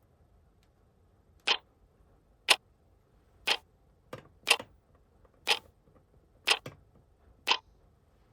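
Clock ticking, about one sharp tick a second, starting about a second and a half in.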